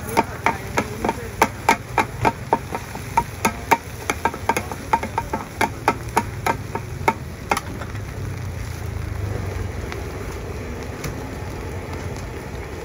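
Two metal spatulas striking and scraping a large iron pan, chopping scrambled egg among the noodles for pad Thai. A quick clacking rhythm of about three strikes a second stops about halfway through, leaving a steady background noise.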